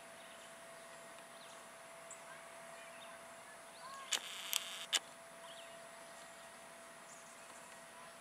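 Faint outdoor background: a steady low hiss with a thin steady hum and scattered small chirps. About four seconds in comes a short burst of rustle with three sharp clicks.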